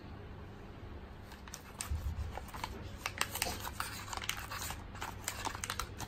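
Paper wrapper of an individually wrapped egg roll being torn open and crinkled by hand, starting about a second and a half in as a dense run of crackles and sharp snaps.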